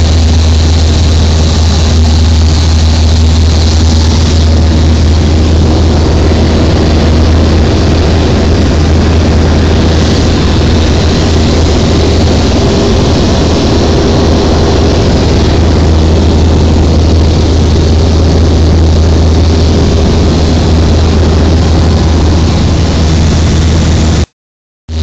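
Single-engine light aircraft's piston engine and propeller droning steadily, heard inside the cabin with airflow noise over the airframe. The sound cuts out abruptly near the end.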